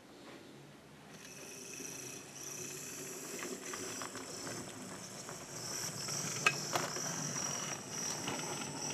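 OO-scale Kerr Stuart Victory 0-6-0 tank model locomotive running along the track: its small electric motor gives a steady high whine, coming in about a second in, with a few sharp clicks from the wheels on the track.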